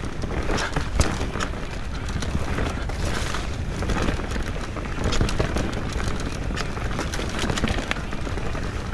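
Mountain bike ridden fast down a rough dirt forest singletrack: tyres rumbling over dirt and roots, with constant rattling clicks and clunks from the chain and frame, over wind rumble on the camera's microphone.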